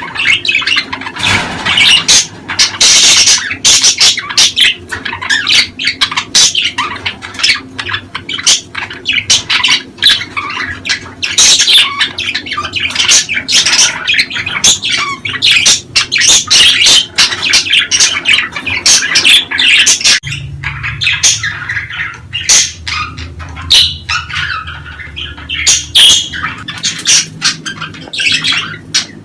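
Budgerigars chattering in their breeding-season warble, a dense run of rapid chirps, clicks and squawks. About two-thirds of the way through the chatter thins out over a low steady hum.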